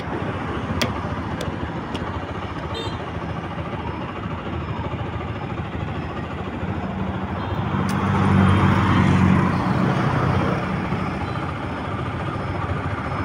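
Yamaha motorcycle riding along a highway: steady engine hum under rushing wind and road noise. The noise grows louder for a couple of seconds past the middle.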